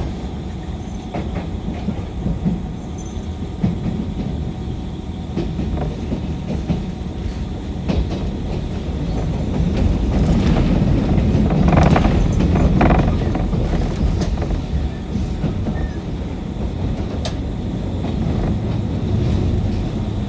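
JR 185 series train running on the rails, heard from inside the car: a steady low rumble with the clickety-clack of wheels over rail joints. It grows louder with a cluster of knocks about halfway through.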